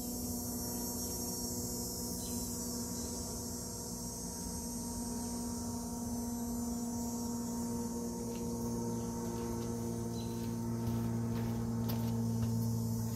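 Steady mechanical hum with several constant tones, growing louder over the last few seconds.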